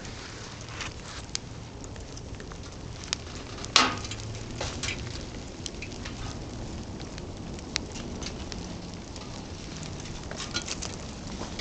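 Fire burning inside a steel burn barrel, crackling with scattered pops and one loud sharp crack a little under four seconds in.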